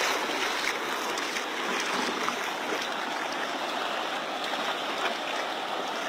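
Steady rush of river water, an even hiss without speech.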